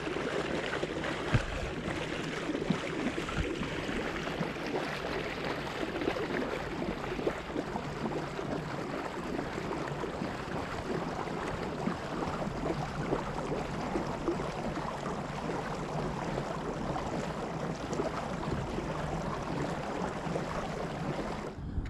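Steady wash and splash of water along the hull of a pedal-driven kayak moving across a calm lake.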